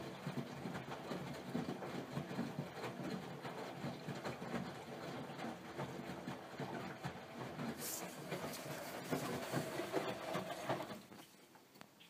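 AEG Öko-Lavamat 84720 front-loading washing machine running a wash, its drum tumbling the laundry through water with a steady churning and many small knocks. A short hiss comes about eight seconds in, and the sound cuts off about a second before the end.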